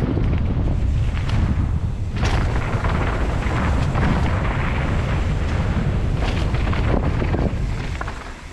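Wind buffeting the microphone over the rattle of a mountain bike rolling fast down a loose dirt and gravel trail, with scattered clicks and knocks from the bike and tyres. The noise drops briefly near the end.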